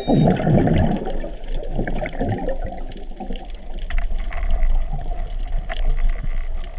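Moving water heard underwater as the diver swims, a muffled rushing that swells in the first second and again around two seconds in. A few short sharp clicks come later.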